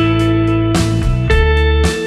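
Background music: a melody of plucked, guitar-like notes over a heavy bass, with a new note about every half second.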